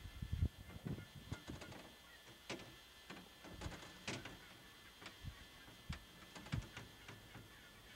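Flock of wild turkeys: irregular soft clicks and low thumps of wings and bodies as gobblers fight and flap, with a couple of short calls about two and a half and four seconds in.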